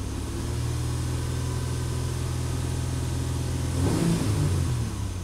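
The 2010 Honda Ridgeline's 3.5-litre V6 running steadily at raised revs, heard from inside the cab, with the pitch shifting briefly about four seconds in. The engine is being held above idle to check fuel trims after they were reset for lean codes P0171 and P0174.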